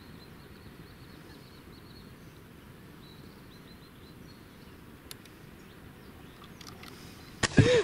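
Quiet outdoor ambience over still water, with a small bird giving runs of short, high chirps in the first few seconds and a faint click about five seconds in. A man's voice starts loudly near the end.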